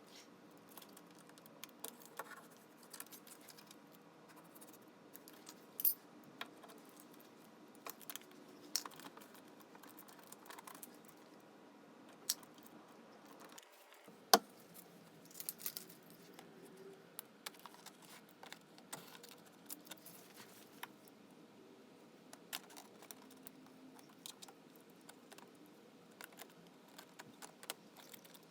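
Faint, scattered clicks and clinks of small hard objects being handled, with one sharp click about 14 seconds in.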